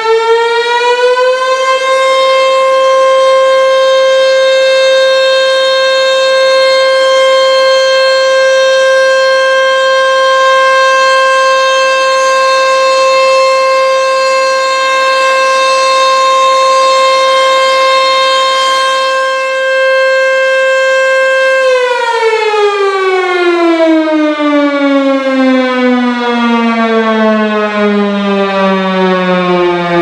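HOR Super Sirex dual-horn electromechanical warning siren finishing its wind-up, then holding one steady tone for about twenty seconds. After that its pitch slides steadily down as the rotor winds down.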